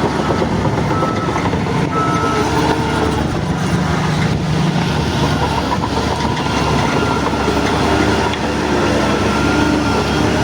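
Crawler bulldozer's diesel engine running steadily under work.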